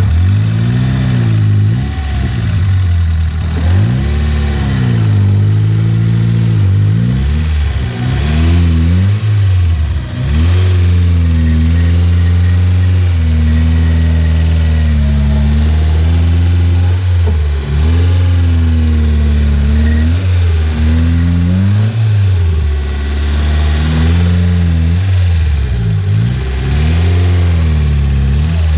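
Off-road vehicle's engine under load, revving up and falling back again and again as the throttle is worked, with a few seconds of steady running midway.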